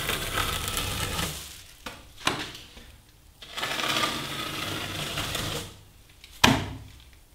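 Metal trowel scraping excess, half-set plaster off a door reveal, in two spells of scraping strokes with a sharp click between them and a sharp knock near the end. The plaster is firm enough to scrape clean but still far too wet to float.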